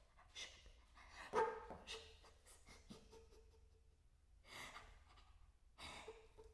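Flute played with breathy extended technique: sharp gusts of air noise, the loudest about one and a half seconds in, with a faint held note sounding through the air after it and again near the end.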